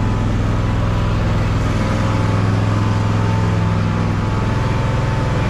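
Riding lawnmower's engine running steadily under way, with a deep, even hum; its note shifts slightly about four seconds in.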